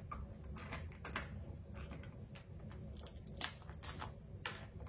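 Irregular light clicks and taps of a hand tool and loose glass fragments on the broken back of an iPhone XS Max as it is picked at and handled.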